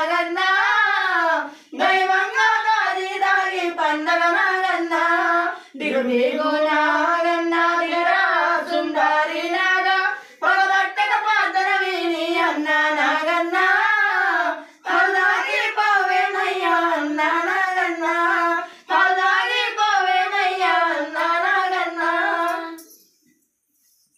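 Women singing a devotional song without instruments, in six phrases of about four seconds each with short breaks for breath between them; the singing stops shortly before the end.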